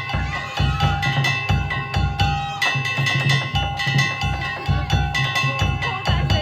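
Danjiri bayashi festival percussion: a large taiko drum beating a steady, driving rhythm with hand-struck kane gongs clanging rapidly over it.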